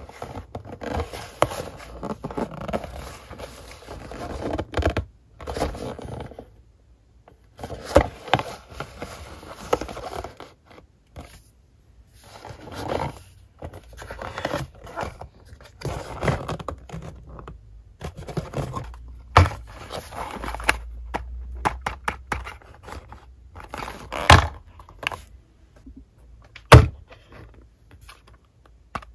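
Hands handling a small cardboard toy-car box: fingers rubbing and scraping over the cardboard and sliding it on a tabletop, in stretches with short pauses between. Several sharp taps as the box is knocked or set down, the loudest near the end.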